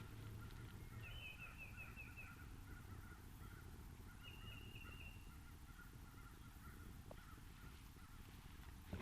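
Faint bird calling in the background: two quick runs of short, high repeated notes, one about a second in and another about four seconds in, with softer lower notes between. Low rumble from wind or microphone handling underneath.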